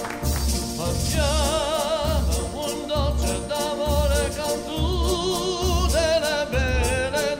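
Operatic singing with a wide vibrato over accompanying music with a steady low beat; the voice comes in about a second in and holds long notes.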